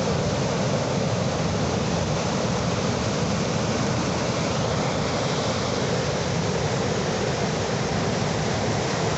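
Sea surf making a steady rushing wash of water, even in level with no separate wave breaks standing out.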